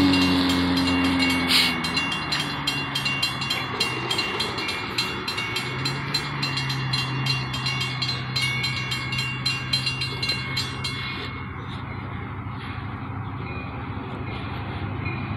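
Railroad crossing warning bell dinging rapidly and evenly while the crossing gates lower, then stopping about eleven seconds in. Underneath, a passing car's engine fades in the first couple of seconds, and a low steady drone runs on from about six seconds in.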